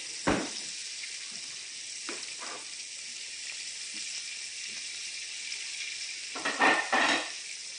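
Fish pieces frying in a skillet of hot oil, with a steady high sizzle. A sharp knock comes about a third of a second in, and a short clatter of knocks comes near the end.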